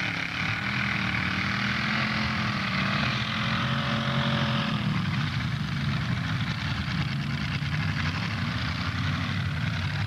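Demolition derby cars' engines running, a steady rumble with a pitched engine drone that rises and falls during the first half.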